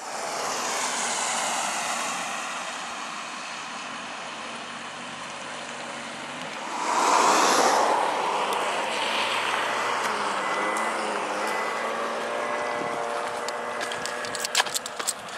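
Road traffic on a wet road: steady tyre hiss and engine noise, with one vehicle passing loudest about seven seconds in. A few sharp taps near the end.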